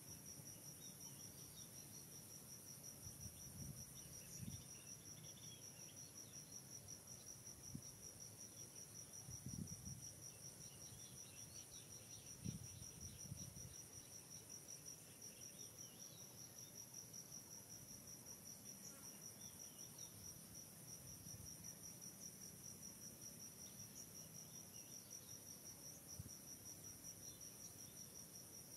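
Faint, steady, high-pitched insect chorus, an even fast trill that runs on without a break, with a few soft low thumps.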